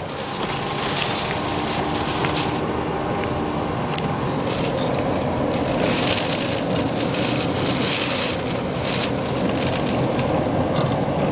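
Wind-driven rain and sea spray beating on a car, heard from inside, coming in hissing surges as gusts hit, over a steady low rumble of wind and the car.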